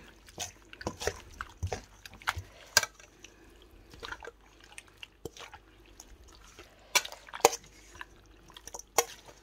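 Dressed seafood and vermicelli salad being tossed in a stainless steel mixing bowl: wet squelching of the squid, prawns and noodles, with irregular clicks and taps of the utensil against the steel. The loudest pair of taps comes about seven seconds in.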